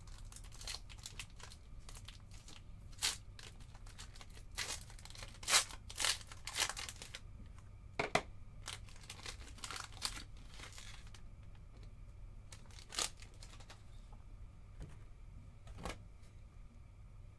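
Foil trading-card packs being torn open and crinkled by hand: a quick run of sharp rips and crackles through the first ten seconds or so, then only a couple of isolated clicks.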